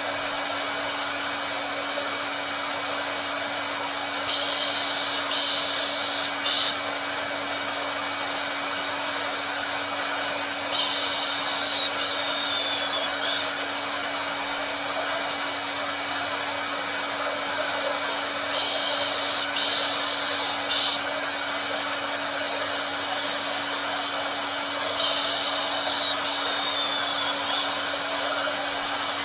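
Hair dryer running steadily with a constant hum under its airflow noise. A brighter, higher-pitched hiss swells in and drops out four times, about every six to seven seconds.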